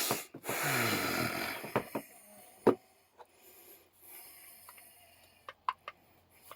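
A drawn-out rasping sound that falls in pitch, then several sharp metal knocks and clicks as vise parts are handled on the bench, the loudest about a third of the way in.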